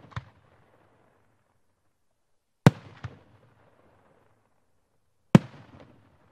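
3-inch aerial firework shells going off: two loud bangs about two and a half seconds apart, each followed by a fainter crack and a rolling echo that dies away.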